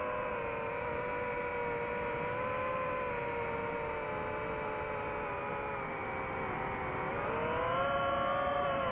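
DJI FPV drone's motors and propellers whining steadily, several tones together that sag slightly and then rise in pitch and get louder about seven seconds in as the motors speed up.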